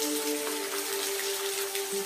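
Steady rain, an even hiss with scattered drop hits, mixed with soft sustained music notes that hold steady and shift pitch a couple of times.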